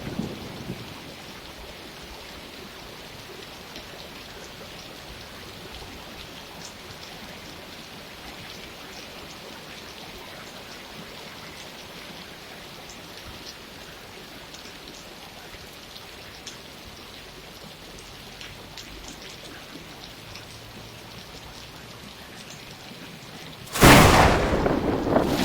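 Steady rain falling, with scattered drops ticking, as the tail of a roll of thunder fades out in the first second. Near the end a loud clap of thunder breaks in suddenly.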